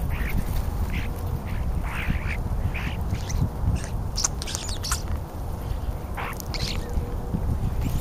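European starlings giving short, harsh calls again and again as they feed, over a steady low rumble.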